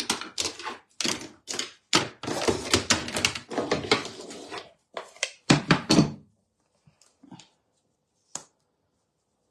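A rapid run of knocks, clatter and rustling for about six seconds, then a few faint taps.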